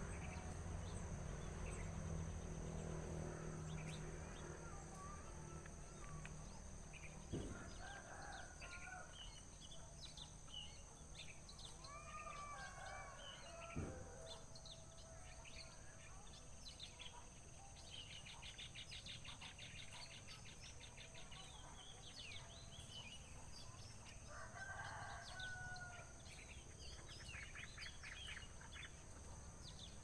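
Faint outdoor ambience with distant bird calls now and then and a rapid high trill in the second half. Two sharp knocks stand out, about a third of the way in and again near halfway.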